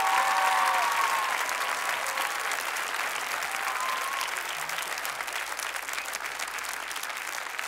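Studio audience applauding, gradually dying down.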